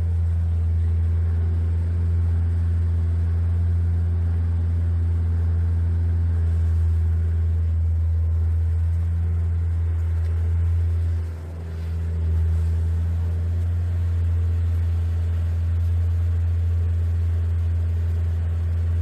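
Engine of a road-kerb extruding machine running steadily with a deep, even hum. It dips briefly about eleven seconds in, then picks up again.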